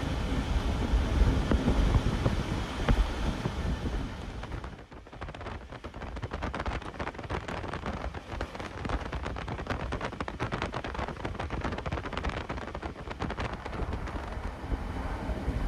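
Running noise of an ex-ÖBB T2S sleeping car at speed: a low rumble of wheels on rail mixed with wind, which drops briefly about five seconds in. After that come a rapid, irregular run of rail clicks and rattles.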